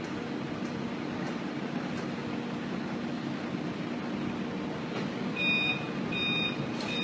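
A heavy vehicle's engine runs with a steady low drone. About five seconds in, a reversing alarm starts beeping, a high beep repeated roughly every 0.7 seconds.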